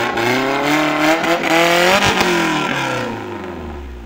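Modified Maruti Gypsy off-roader's engine revving hard under load in mud, the revs rising and falling several times, then easing off and fading near the end.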